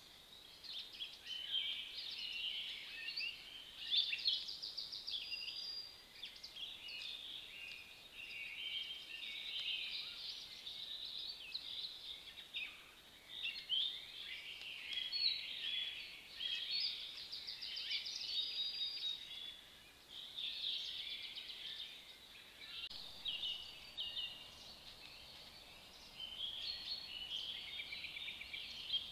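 Several songbirds singing at once: a dense, unbroken chorus of high chirps, whistles and rapid trills over a faint steady hiss.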